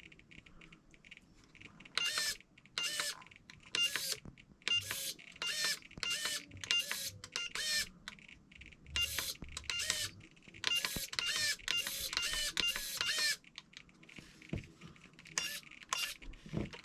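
Traxxas waterproof micro servo on a TRX4's locking differential whirring in a rapid series of short bursts, about two to three a second, as it is cycled back and forth between locked and unlocked. The bursts pause for a couple of seconds and then resume briefly near the end. After adjustment, the servo is working rather than dead.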